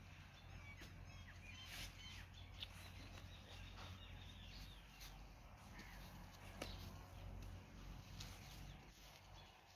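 Near silence: quiet outdoor ambience with faint, scattered bird chirps over a low steady hum.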